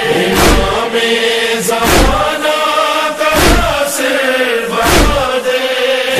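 Noha chorus of male voices chanting in held notes, over a deep thump that falls about every second and a half.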